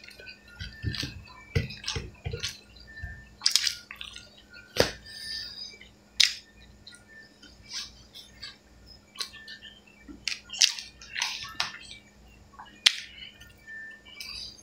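Close-up mouth sounds of a person eating rice and pork by hand: wet smacks and chewing clicks at irregular intervals.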